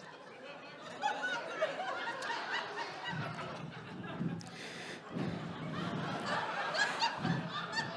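Audience laughing and chuckling, many voices overlapping, swelling a few times.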